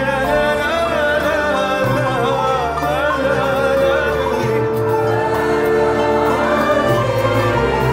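Male vocalist singing an ornamented Syrian melody, his line wavering up and down, over an orchestra of violins and a ney flute holding sustained chords with a steady bass.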